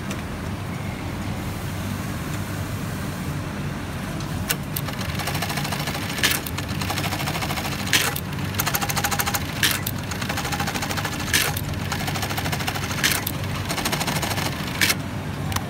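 Industrial button-sewing machine running: a steady motor hum, with bursts of rapid needle stitching and a sharp click about every second and a half to two seconds from about four seconds in.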